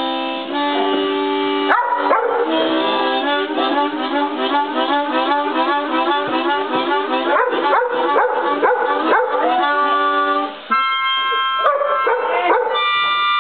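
Harmonica playing chords, with a fast warbling run of alternating chords through the middle, while a Shepherd-Chow mix dog howls along with it.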